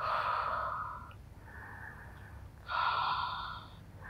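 A woman breathing deliberately and audibly in time with a Pilates leg lift: two long, loud breaths of about a second each, roughly three seconds apart, with softer breaths between them.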